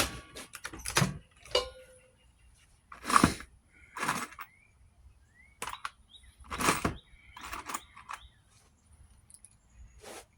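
A handful of short, separate knocks and scrapes, as of tools and wood being handled on a workbench, with pauses between them.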